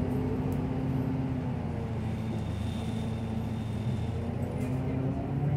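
City bus's engine and drivetrain humming steadily, heard from inside the passenger cabin. The pitch sags partway through and climbs again near the end.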